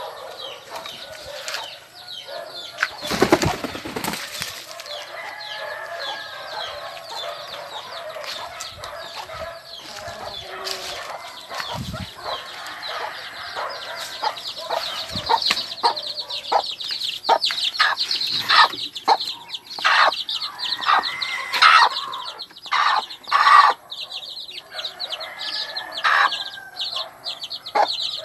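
Backyard chickens clucking, with a loud rustle about three seconds in. From about halfway through, chicks peep constantly in high, rapid calls over the hen's clucks.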